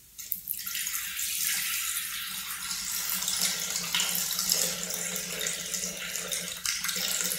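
Water poured in a steady stream from a glass jug into the stainless-steel mixing bowl of a Thermomix, starting just after the beginning.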